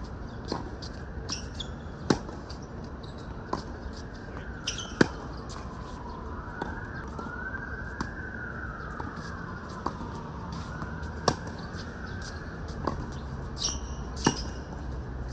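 Tennis rally: the ball is struck by rackets in a regular back-and-forth, sharp pops about every one and a half seconds. Some strikes are louder than others, the loudest about five and eleven seconds in. Through the middle a siren wails, rising and falling in pitch, over a steady low background.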